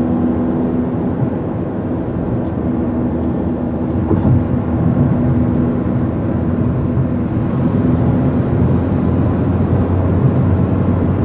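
Steady road noise heard from inside a car cruising on a highway: a low drone of tyres and engine with a faint hum.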